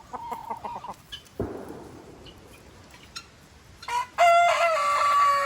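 A rooster crowing, one long loud held call starting about four seconds in. Before it, a few quick clucking calls in the first second and a soft thump.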